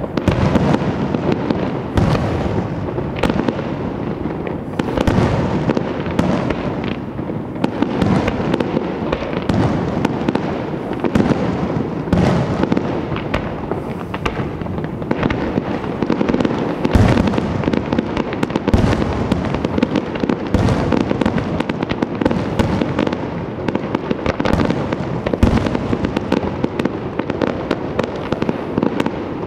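Aerial fireworks display: a rapid, unbroken series of shell bursts and bangs, several a second, over a continuous din of explosions.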